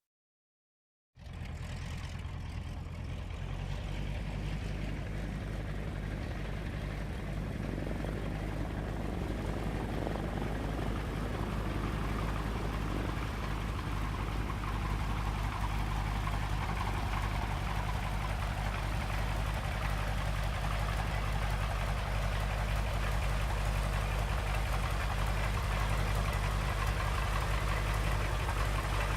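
Piston engine running steadily with a low, even drone, cutting in abruptly about a second in after silence.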